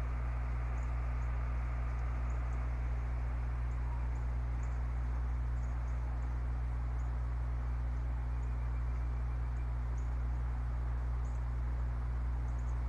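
Steady low electrical hum with a hiss over it from the nest camera's microphone, with faint scattered high ticks.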